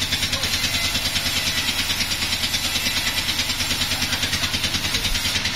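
Sawmill engine running steadily with an even, rapid pulsing, about eight beats a second.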